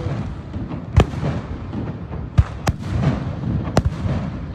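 Aerial fireworks bursting, with sharp booms about one second in, twice close together around two and a half seconds, and again near four seconds, over a continuous low rumble of further explosions.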